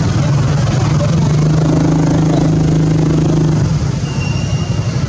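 A motor engine running steadily behind constant rumbling noise. Its steady hum is plainest from about a second and a half to nearly four seconds in.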